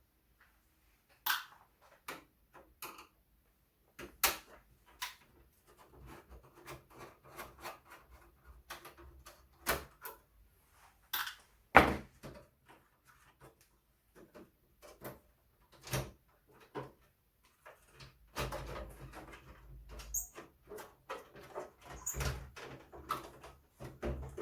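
Scattered clicks and knocks of metal and plastic computer parts being handled as the motherboard's steel mounting plate is freed from the Compaq Portable's case, with one loud knock about halfway through and a stretch of rustling and scraping near the end.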